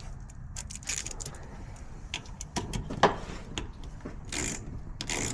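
Light metallic clicks, taps and short scrapes of small parts being handled: the wire's terminal and washer being worked onto the ignition coil's positive terminal.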